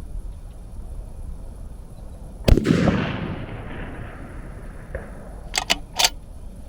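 A single rifle shot with its report echoing and dying away over about two seconds, followed near the end by three quick sharp clicks.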